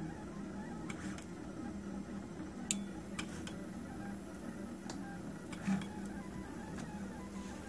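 Prusa Mendel RepRap 3D printer printing in ABS: its stepper motors hum and whine steadily as the extruder head and bed move, with short clicks at changes of direction, the sharpest about a third of the way in and another past the middle.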